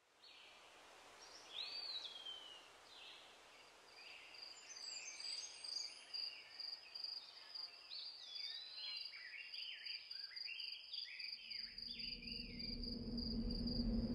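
Birds chirping and calling, with a steady high insect trill that comes in about four seconds in. Near the end a low drone swells in beneath them.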